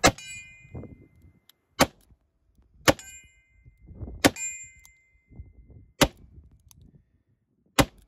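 Six shots from a Taurus 856 .38 Special revolver, fired one at a time about one to two seconds apart, several of them followed by a brief metallic ring.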